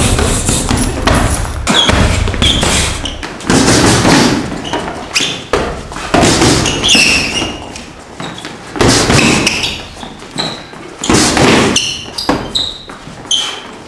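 Karate punches and kicks thudding into a heavy punching bag and then into hand-held strike pads, coming in loud clusters of strikes every couple of seconds.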